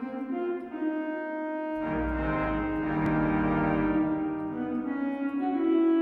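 Virtual pipe organ (Hauptwerk, sampled cathedral pipe organ) playing sustained chords. A deep pedal bass comes in about two seconds in, and the chord changes shortly before the end.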